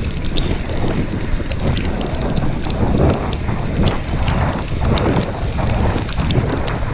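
Wind buffeting the microphone of a camera riding along on a bicycle over a rough trail: a steady low rumble with frequent sharp clicks and rattles.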